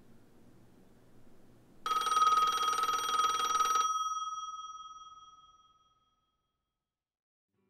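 A bell ringing once, a fast rattling ring for about two seconds, then stopping and leaving its tone to die away over the next two seconds.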